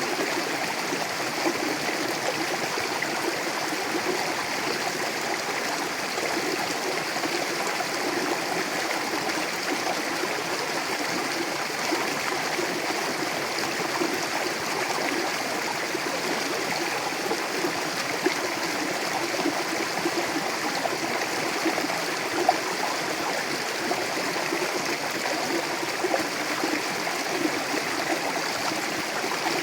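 Mountain river rushing and gurgling over rocks, a steady, even flow of water.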